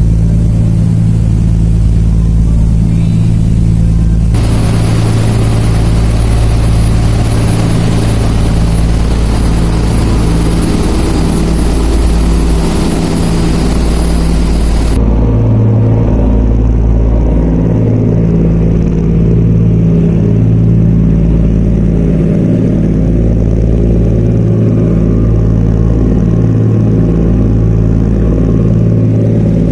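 Steady, loud drone of a car ferry's diesel engines heard on board, with a deep, even hum. A rushing hiss joins it abruptly about four seconds in and cuts out about fifteen seconds in.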